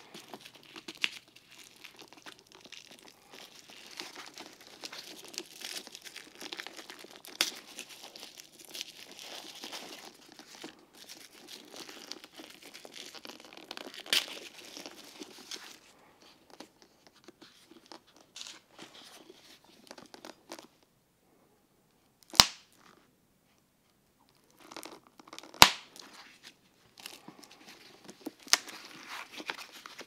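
Protective wrapping crinkling and tearing as it is pulled off a leather briefcase's handles, dense at first and then sparser. Two sharp clicks stand out about two thirds of the way in, a few seconds apart.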